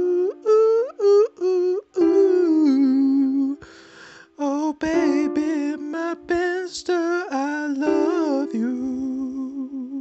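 Homemade electronic song: a voice sings wordless, gliding notes over held synthesizer notes, with a short drop-out about four seconds in.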